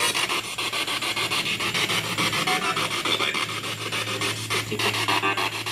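Spirit-box radio sweeping rapidly through FM stations and played through a small external speaker: a steady, fast chopping of static and clipped radio fragments, many cuts a second, with a low hum joining a little past halfway. The investigators take one fragment for a spirit voice saying 'my life was too bad'.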